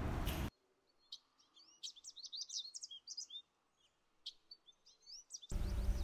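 Small birds chirping: a quick run of short chirps and whistled notes, some sliding up or down in pitch, over an almost silent background. Steady room noise cuts off about half a second in, and outdoor ambience returns near the end.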